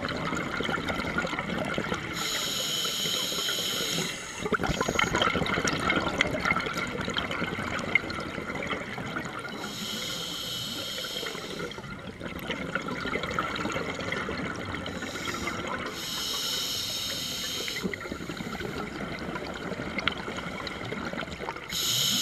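Sea water sloshing and gurgling around the camera, with a swimmer's breath hissing about every six to seven seconds.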